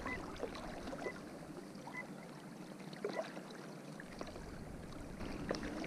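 Quiet riverside ambience: soft lapping and trickling of calm river water, with a few faint short chirps from birds scattered through it.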